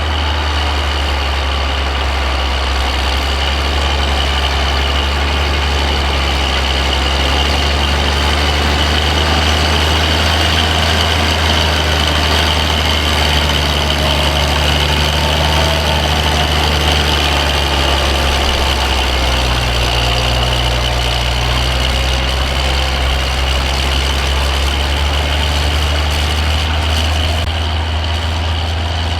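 Tractor engine running steadily, pulling a plough, with a low, even engine note that holds throughout.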